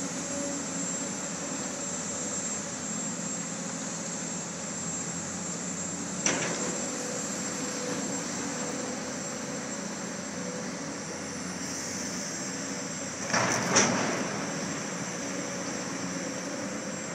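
Excavator diesel engines running steadily on an excavation site, with a sharp metallic clank about six seconds in and a louder run of clanks and scrapes around thirteen to fourteen seconds in.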